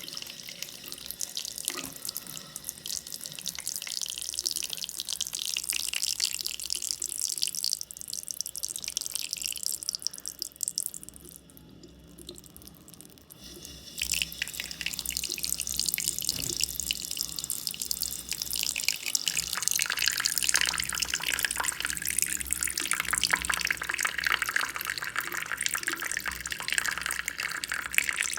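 Water running from a tap and splashing, dropping to a faint trickle for about three seconds in the middle before running full again.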